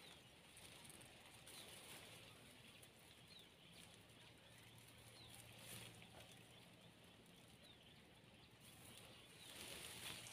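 Near silence: faint outdoor background with a few short, faint bird chirps. Faint rustling of a plastic bag being handled starts near the end.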